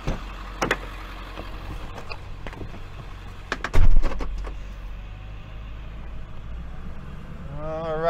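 Tow truck engine idling with a steady low hum, with a few clicks and then a heavy thump a little under four seconds in, the sound of the cab door shutting as the driver climbs back in.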